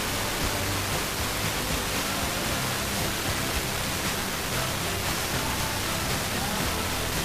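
FM radio station barely above the noise floor, received by tropospheric propagation from about 977 km: a steady, loud hiss with faint music coming through underneath.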